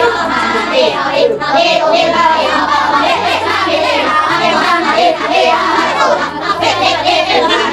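Children singing together over instrumental music with held bass notes.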